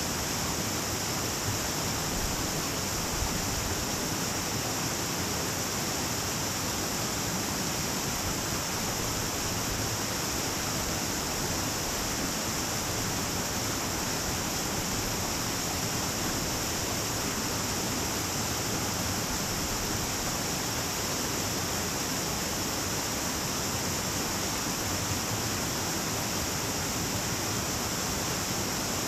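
Stream water rushing steadily over rocks in a small cascade, with a steady high-pitched hiss above it.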